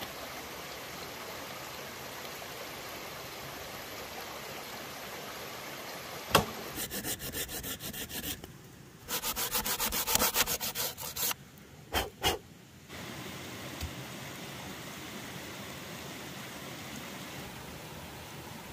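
Folding hand saw cutting through a log in two quick bursts of rapid back-and-forth strokes, about five a second. A sharp knock comes just before the sawing and two knocks just after, over a steady background hiss.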